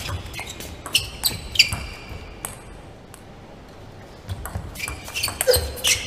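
Table tennis ball being struck back and forth by bats and bouncing on the table in a rally: sharp hollow clicks with a short high ping. A run of hits in the first two and a half seconds, a pause of about two seconds, then a quicker run of hits near the end.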